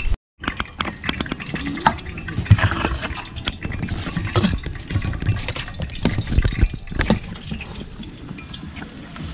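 Water splashing and pouring, with many irregular clicks and knocks.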